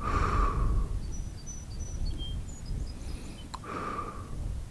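Wind rumbling on the microphone in an open field, with a few faint bird chirps. Two short breathy bursts come at the start and about four seconds in, and a single sharp click sounds just before the second.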